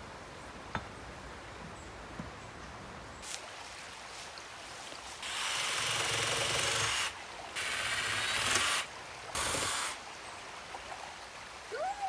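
Cordless drill driving screws into round wooden poles, running in three bursts, the first about two seconds long and the next two shorter, with pauses between.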